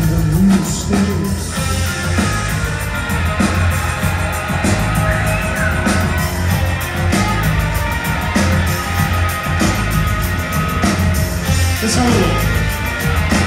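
Live rock band playing loudly through a venue PA, with drums, bass and guitar under a singing voice, recorded from among the audience.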